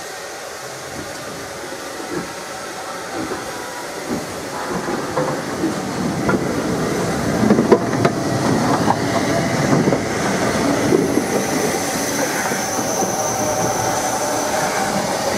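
Southern Railway Q class 0-6-0 steam locomotive No. 30541 rolling slowly past tender-first, its wheels clicking and knocking over the rail joints. It grows louder from about four seconds in, and a thin high tone comes in over the last few seconds.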